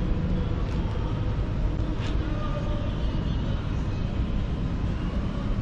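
Steady city street traffic: cars passing with a continuous low rumble of engines and tyres.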